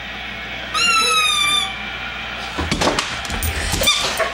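A young pit bull gives one high whine lasting about a second, falling slightly in pitch, then a stretch of knocks and scuffling as the dog and a child tussle on the floor.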